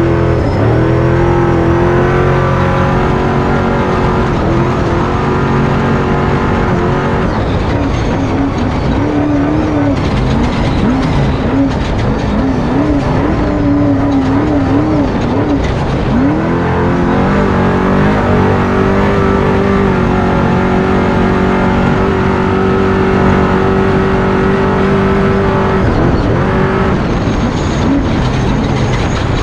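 Off-road truck engine running hard at high revs. It holds a steady pitch, then rises and falls repeatedly as the throttle works over rough ground, and dips briefly about halfway through and again near the end.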